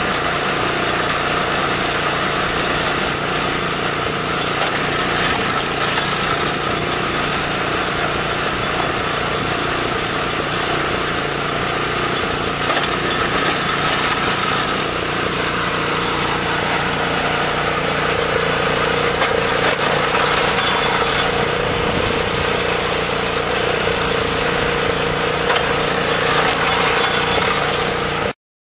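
Engine-driven Gripo log splitter running steadily while splitting logs. Its tone shifts about halfway through, and the sound cuts off suddenly near the end.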